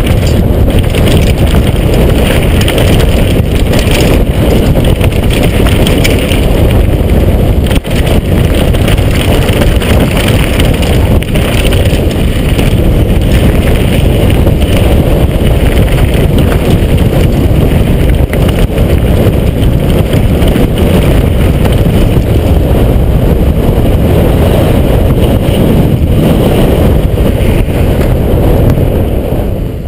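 Heavy wind buffeting on the camera microphone and a downhill mountain bike's tyres and frame rattling over the trail during a fast descent, with a few sharp knocks. It fades out near the end.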